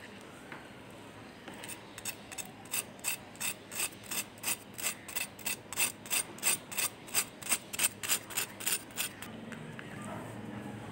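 A metal knife scraping over and over across the crispy fried crust of a potato cutlet (aloo tikki): a rasping crunch about three times a second for some seven seconds, loudest toward the end of the run.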